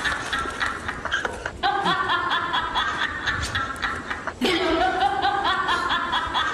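Laughter in quick, repeated short bursts, with a brief sharp sound about two-thirds of the way through.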